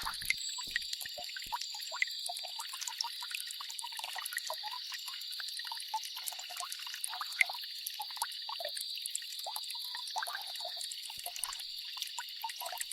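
Rain falling on a lake: a steady hiss with many small, irregular drips and plinks on the water surface.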